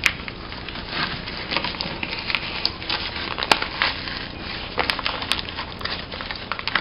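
Polythene nursery bag crinkling and rustling as it is peeled off a soil root ball by hand, with irregular crackles and small clicks.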